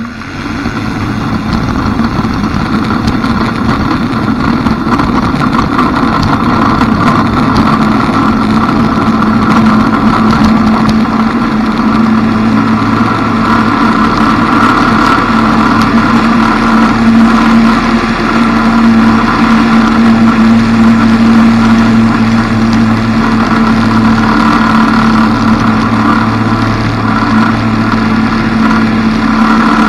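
Ikarus C42 microlight's engine and propeller opening up to full take-off power. The sound swells over the first two seconds, then holds as a loud, steady drone through the take-off roll and climb, heard close to the spinning propeller.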